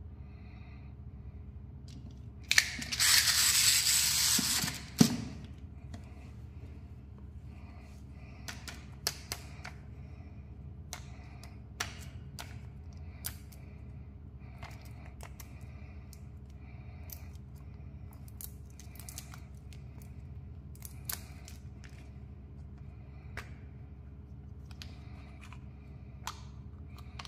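Plastic candy packaging and toys handled close to the microphone: a loud rustling burst of about two seconds near the start, then scattered small plastic clicks and taps, as a small candy tube's cap is worked near the end.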